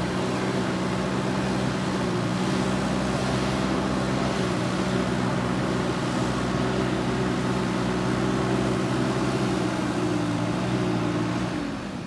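JCB 3DX backhoe loader's diesel engine running steadily under load as the front loader bucket pushes and levels loose soil. The engine note eases off near the end.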